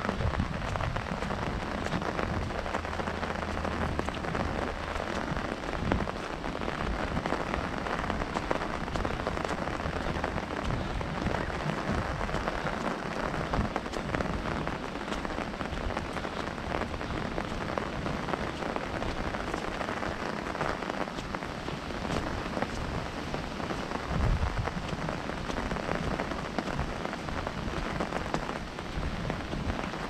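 Steady rain pattering on an umbrella held overhead, with gusts of wind rumbling low on the microphone now and then, strongest in the first third and again briefly near the end.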